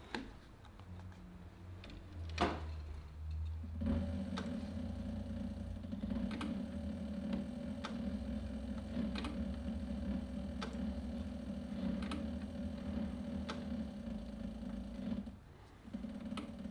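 Cobra Class 3 industrial leather sewing machine sewing slowly through heavy vegetable-tanned leather with bonded nylon thread: its motor hums steadily with a click from each stitch about every second and a half. A sharp knock comes a couple of seconds in. The machine starts about four seconds in, stops briefly near the end and starts again.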